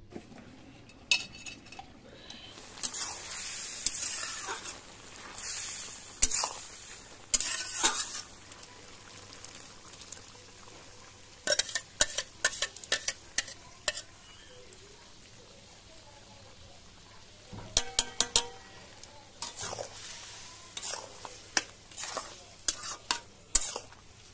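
Goat intestine frying in oil in a steel kadai, sizzling in surges, while a metal spatula stirs and scrapes against the pan, with runs of quick clinks and taps in the second half.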